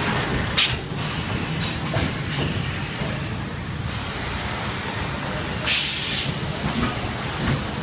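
Automatic high-frequency PVC welding machine line running with a steady noise, broken by a short, sharp hiss about half a second in and a longer hiss near six seconds.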